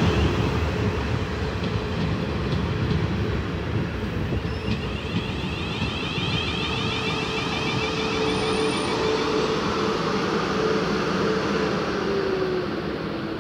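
A pair of Class 450 Desiro electric multiple units running past along the platform: wheels rumbling on the track under a steady motor whine. Near the end the whine drops in pitch and the sound fades as the rear unit goes by.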